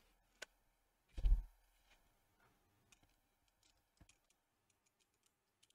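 The amplifier's bare circuit board handled and set down on a hard work surface: a sharp click, then a dull knock about a second in, followed by a few faint light clicks.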